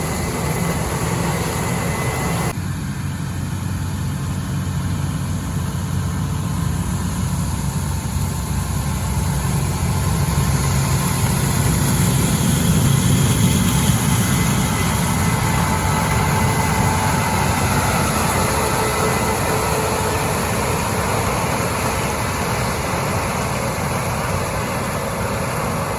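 Diesel engine of heavy harvest machinery running steadily under load, a deep continuous drone. The higher hiss drops away abruptly about two and a half seconds in, and the engine swells a little louder about halfway through.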